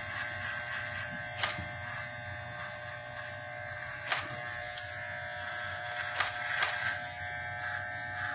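Electric hair clippers running with a steady buzz as they cut through a full beard, with a few short clicks along the way.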